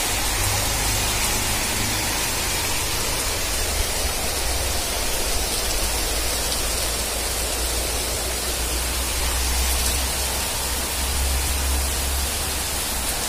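Heavy rain pouring steadily: an even hiss, with a low rumble underneath.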